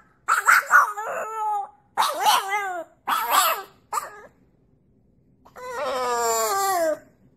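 Young French bulldog howling: several short, wavering howls in the first half, then after a pause one longer howl that slides down in pitch.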